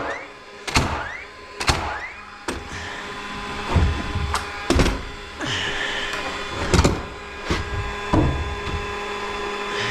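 Irregular sharp knocks and heavy thuds on 2x4 framing lumber, about a dozen in all, as a twisted stud is worked into place and fastened. A faint steady hum runs underneath.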